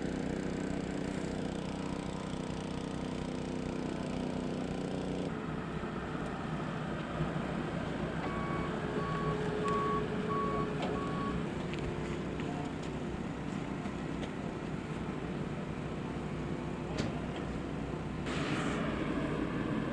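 Steady engine noise of heavy vehicles, with a vehicle's reversing alarm beeping about five times a little before the middle.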